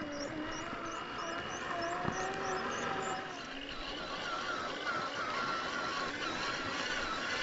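Electric motor and gear train of a 1/10-scale RC rock crawler whining as it drives, the pitch wavering up and down with the throttle. A little after three seconds the lower whine drops away and a higher, wobbling whine carries on.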